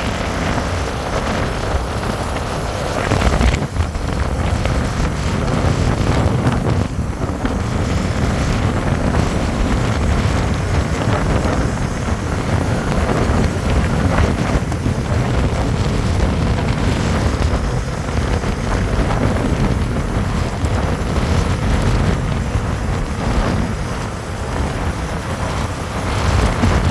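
Steady wind rushing over the microphone of a motorcycle riding at speed, with engine and road noise beneath.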